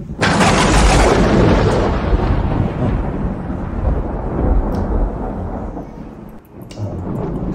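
A loud clap of thunder that breaks suddenly and rumbles away over several seconds.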